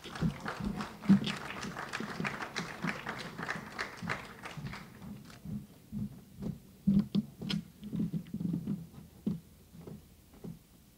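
Scattered soft thumps and clicks of people moving about on a stage and handling paper folders. They are dense in the first half, sparser later, with the loudest about a second in and around seven to nine seconds in.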